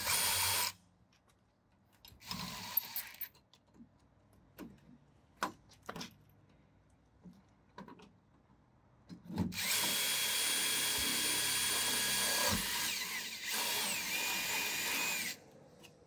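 DeWalt cordless drill boring a post hole through a metal door. A short burst and a second brief run are followed by scattered clicks and taps. Then comes a long steady run of about six seconds, whose motor whine drops in pitch partway through and then cuts off.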